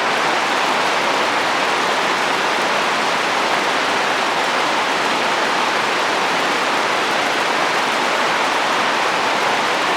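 Steady rain falling on a roof, with wind, at an even level with no individual drops or gusts standing out.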